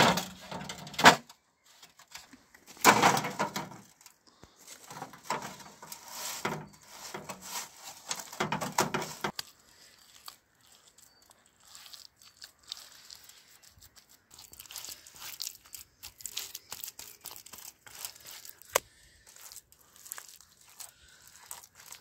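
A thin corrugated metal sheet scraping, rattling and knocking as it is handled and set down on stones, with a sharp knock about a second in and louder bursts about three and eight seconds in. After that, softer scraping and patting of gloved hands smoothing wet mud onto a mud-oven wall.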